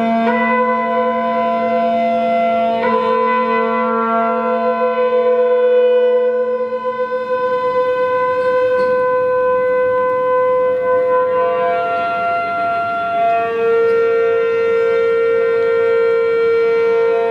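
Chamber ensemble of winds and brass holding long sustained notes, the pitches shifting by small steps, with small note changes about a second in and about three seconds in. A low note fades out about halfway through, and a new held note enters later.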